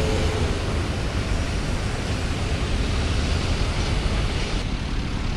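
Steady low rumble and hiss of ferry-port ambience, with wind buffeting the microphone.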